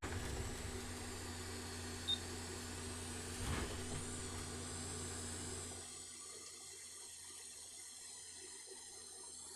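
Steady whir of a small electric motor in a desoldering tool, clearing leftover solder from a through-hole on the PS5 board, with a short electronic beep about two seconds in. The whir drops to a lower level about six seconds in.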